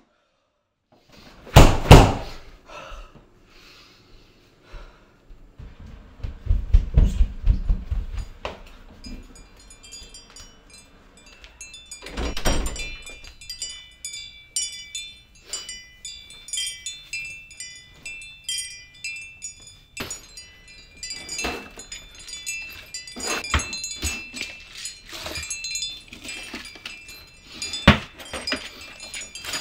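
A loud thump about two seconds in, then scattered knocks and handling noises, a low rumble and a second heavy thump. Through the second half a bright tinkling chime builds up.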